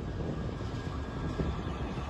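Steady low rumble of a diesel-hauled freight train.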